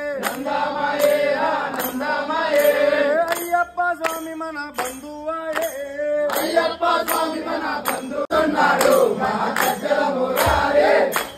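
Devotional Ayyappa bhajan singing, a sung melodic line over a steady percussion beat of about two strikes a second.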